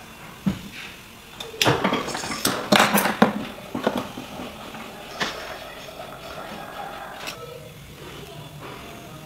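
Steel jeweller's tools clinking and scraping against a metal ring on a steel bench plate. There is a cluster of sharp clicks and knocks about two to three seconds in, a few lighter ones after, then quieter working sounds.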